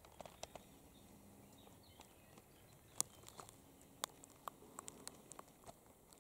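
Near silence with scattered faint, irregular clicks and ticks, the sharpest about three seconds in.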